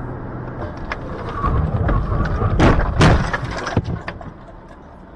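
Car crash heard from inside the dashcam car: road and engine noise grows rougher, then two loud crashing impacts about half a second apart near the middle, followed by a few smaller knocks and rattles.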